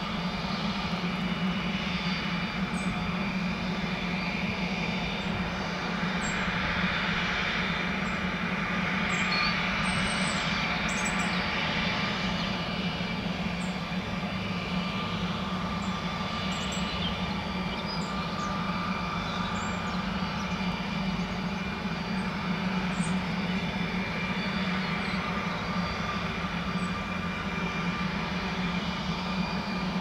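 Steady jet engine noise: a constant low hum with a high turbine whine, holding the same level throughout.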